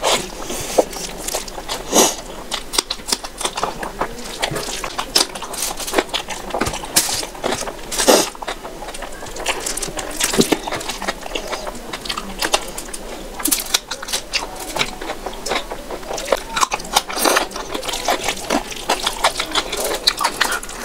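Close-up wet chewing and lip smacks from eating oily masala rice by hand, with squelching as fingers knead the rice into balls. Many irregular sharp clicks and smacks.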